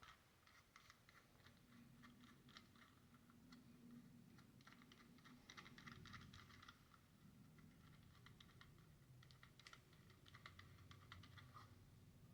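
Near silence with faint, irregular light clicking and ticking of small plastic parts being handled.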